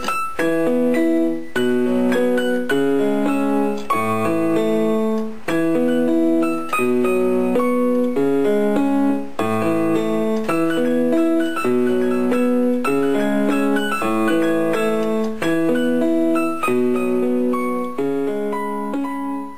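Instrumental piano music, a repeating figure of broken chords, with no singing.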